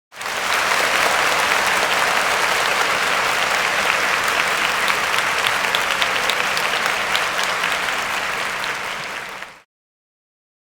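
Crowd applauding: a dense, steady clatter of many hands clapping, tapering off and cutting out about a second before the end.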